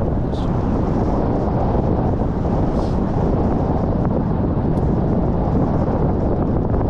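Wind buffeting the camera microphone during a tandem paragliding flight: a loud, steady rumbling rush of air.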